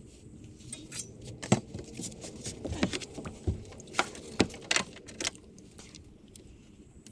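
A series of irregular light knocks and clicks, loudest about a second and a half in and again around four seconds in, then fading out.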